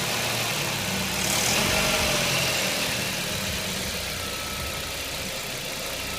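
1.8-litre 20-valve AGN four-cylinder petrol engine running at low revs, where the owner hears a knock. The note rises slightly about a second and a half in, then eases back down.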